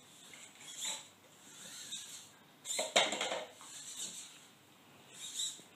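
Servo motors of a Bioloid-kit robot arm whirring in three short bursts as the arm moves, with a sharp knock about three seconds in that is the loudest sound.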